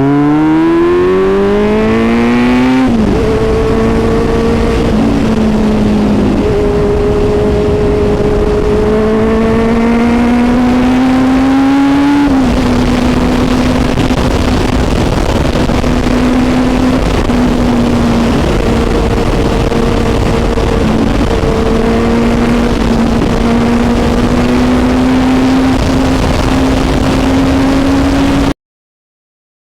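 Kawasaki Z900's inline-four engine through an SC Project exhaust at full throttle. The revs climb, drop sharply at an upshift about three seconds in, climb again in a long pull to about twelve seconds, then hold a steady high note at speed under heavy wind rush. The sound cuts out for about a second near the end.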